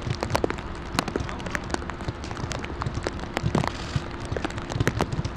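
Heavy rain falling, with many sharp, irregular drop hits close to the microphone and a faint steady hum underneath.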